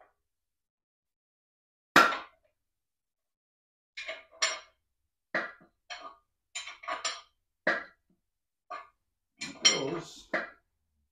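A long-handled socket wrench turning the nut on a sleeve puller's threaded rod to draw a worn cylinder sleeve out of a Ford 8N tractor engine block. It makes a run of short metal clinks and clacks, the loudest a single sharp crack about two seconds in, with the clicks coming closer together near the end.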